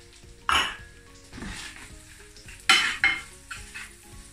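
Onions and garlic frying in butter and oil in a skillet, stirred with a spatula: about four scraping strokes against the pan, two of them close together near the end, over a light sizzle.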